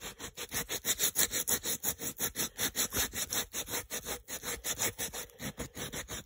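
Crumpled aluminum foil, dipped in water, rubbed briskly back and forth on a rusty metal car-mirror arm to polish off rust: a scratchy scrubbing at about four strokes a second.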